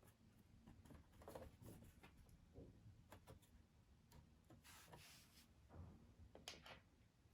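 Near silence, with faint scattered clicks and light rustling, like small parts or tools being handled.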